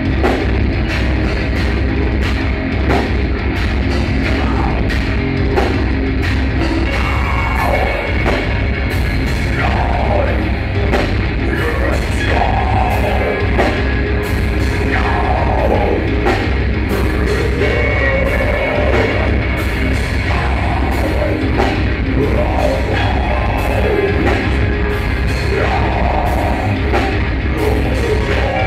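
Live heavy metal band playing: electric guitar and bass over drums with a steady cymbal beat, and a vocalist singing.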